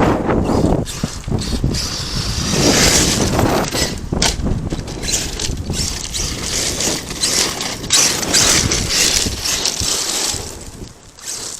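Arrma Kraton 8S RC monster truck running hard on dirt: its electric drivetrain whines while the tyres crunch and throw dirt, with many short knocks and clatters. It eases off near the end.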